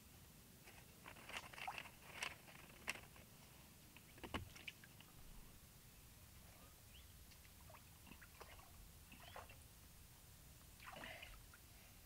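Faint scattered splashes and small knocks in shallow water: a quick cluster early, a sharper knock about four seconds in, and a short slosh near the end.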